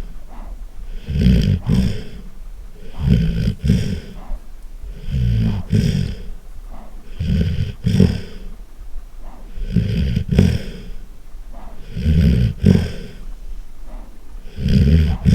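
Golden retriever snoring loudly: a deep, rumbling snore about every two seconds, seven snores in all.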